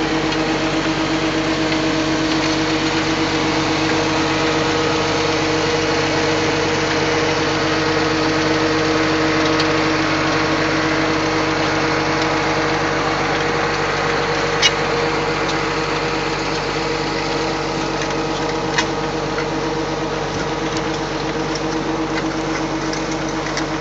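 Tractor engine running steadily under load while it pulls a plastic mulch layer, with two brief sharp clicks in the second half.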